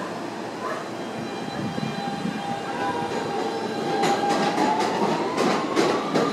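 R160B subway train pulling out of the station: the electric traction motors whine, rising in pitch as it speeds up, over a rumble. From about four seconds in, the wheels click over rail joints at a quickening pace.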